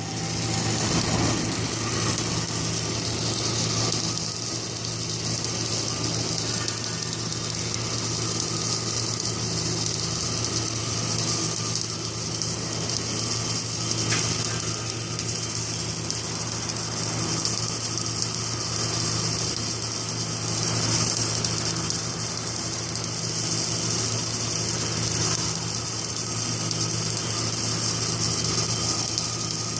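Submerged arc pipe-welding setup with its rotator running: a steady electrical hum with a constant hiss over it.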